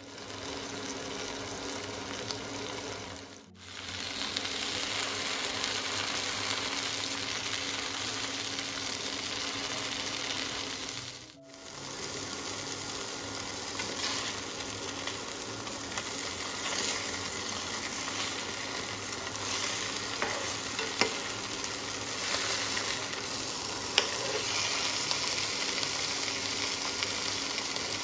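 Cod fillets sizzling steadily in a hot frying pan. The sizzle cuts out briefly twice. Two sharp clicks come in the second half, as a spatula touches the pan while the fillets are turned.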